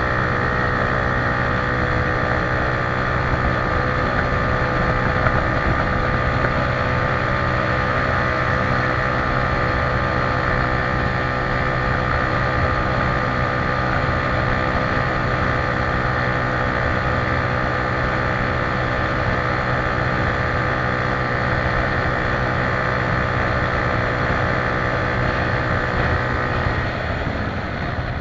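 Motorcycle engine running at a steady speed while riding, with wind buffeting the microphone.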